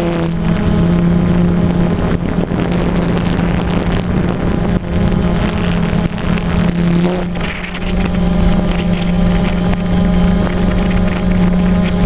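DJI Phantom quadcopter's motors and propellers making a steady buzzing hum over a rush of air noise.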